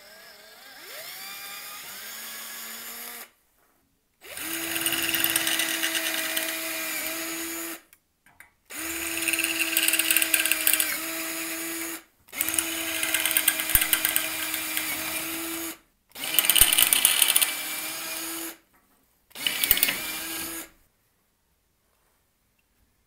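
Electric drill boring into a wooden block. It starts with a quieter run whose whine climbs in pitch as it spins up, then comes five loud runs of a steady whine, each two to three and a half seconds long with short pauses between. The pitch dips slightly under load near the end of some runs.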